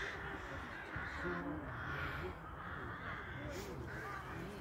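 Crows cawing, a string of harsh caws repeating about once a second.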